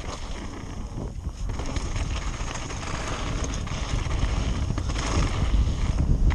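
Mountain bike descending a loose, rocky gravel trail: wind rushing over the camera microphone and tyres crunching and clattering over stones, growing louder as the speed builds.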